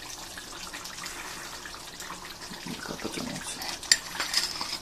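Metal ladle scraping and clinking against a nonstick pan as a piece of beef is scooped out of the simmering curry, with one sharp clink about four seconds in. The curry simmers under it with a steady low hiss.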